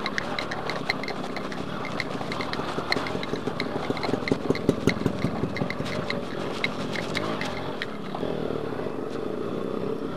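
Yamaha two-stroke single-cylinder motorcycle engine running at low speed under way, with a regular light ticking of about three a second. A few louder knocks come midway.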